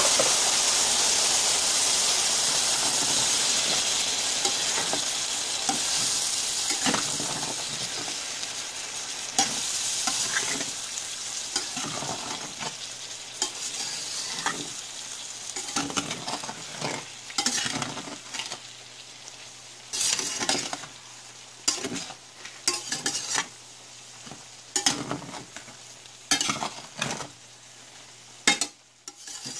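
Water sizzling in a hot stainless-steel skillet of penne and meatballs, loud at first and dying down over about ten seconds, with a spatula scraping and clinking against the pan in irregular strokes as the pasta is stirred.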